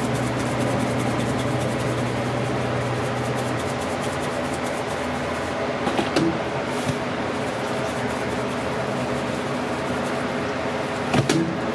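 Steady mechanical hum of kitchen equipment, with a low droning tone that drops out about a third of the way in. Two brief knocks sound, one about halfway through and one near the end.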